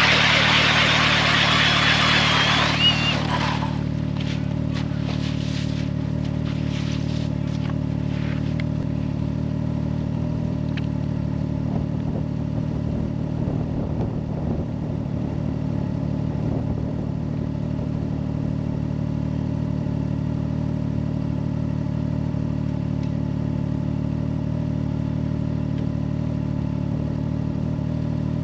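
A motor running with a steady, unchanging drone. A loud rushing hiss lies over it for the first three to four seconds.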